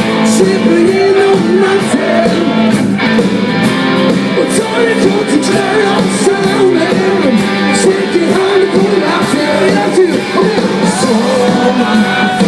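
Live dansband music: the band playing the opening of a pop song, with some singing and shouting over it.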